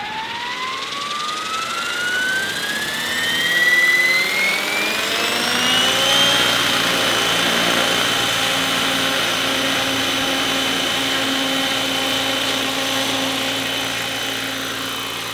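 Radio-controlled scale Robinson R22 helicopter spooling up: a whine rising in pitch for about six seconds, then holding steady as the rotor reaches flying speed and the model lifts into a hover.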